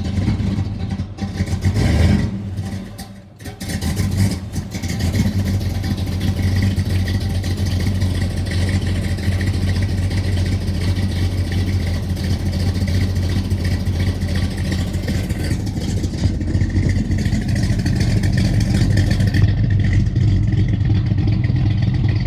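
Fox-body 1991 Ford Mustang notchback's engine running: a rev about two seconds in, a brief dip, then a steady, even idle.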